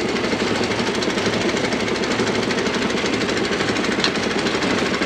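Pneumatic bead-breaker hammer running steadily, a continuous rapid hammering as it is driven against the bead of a large loader tire to unseat it from the rim.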